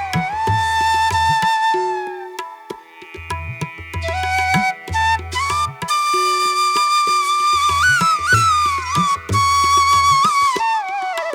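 Background music: a flute melody with slides between held notes over low hand-drum strokes. The drums drop out briefly about two to three seconds in.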